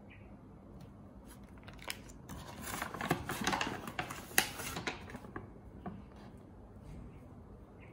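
Plastic and foil ramen sachets crinkling, with small taps as they are handled and set down on a wooden table. The rustling is loudest in the middle, with one sharp tap a little past halfway.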